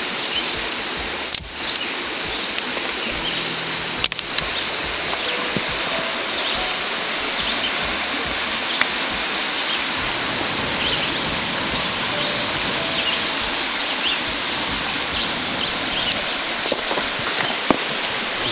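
Steady rushing of a creek, with scattered light crackles and pops from a small, freshly lit campfire of dry driftwood, twigs and leaves. Two sharper clicks come about one and a half and four seconds in.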